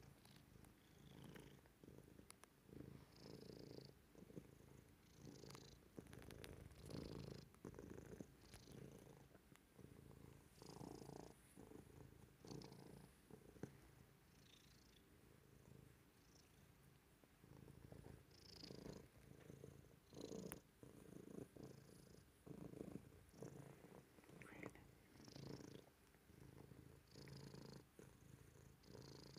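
Domestic cat purring close to the microphone while its head is scratched, the purr swelling and fading about once a second.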